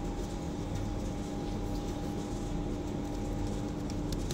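Steady machine drone of kitchen equipment, with a constant pitched hum under an even noise. A couple of brief clicks near the end.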